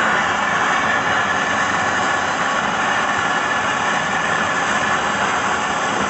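Handheld gas torch on a yellow fuel cylinder burning with a steady, loud rushing hiss as it heats refrigerator copper tubing for brazing.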